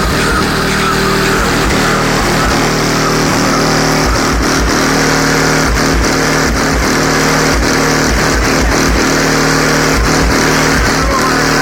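Rap track played loud through a car's subwoofer system, with heavy bass hits repeating in a beat pattern.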